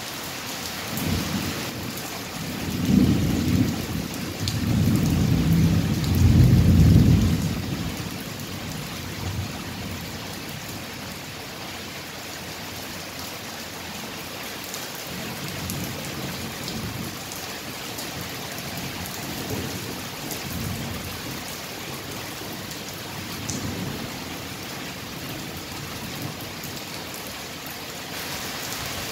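Steady rain with thunder: a rolling rumble builds about a second in and is loudest from about three to seven seconds in, then fades. Fainter, more distant rumbles follow in the second half while the rain goes on.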